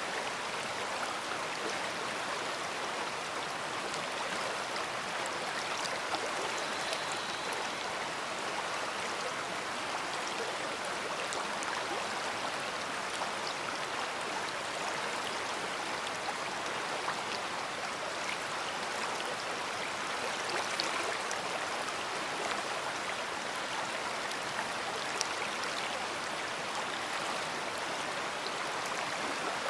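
A big river's water rushing steadily over rocks, an even wash of noise with small splashes and ticks of water here and there.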